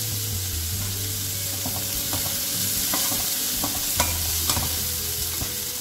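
Chopped onions with ginger-garlic paste sizzling in hot oil in a kadai while a perforated metal spoon stirs and scrapes them, with a few sharp clicks of the spoon against the pan.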